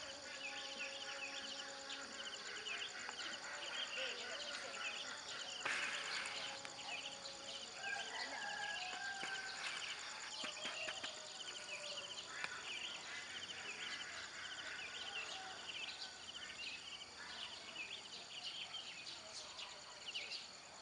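Pre-dawn outdoor ambience: insects trill steadily and high under many short repeated bird chirps, with a few clearer whistled bird notes partway through. About six seconds in there is a brief noisy burst.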